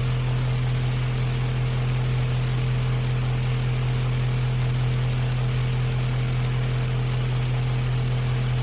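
Portable electric fan running steadily: a strong, even low motor hum under a constant rush of moving air.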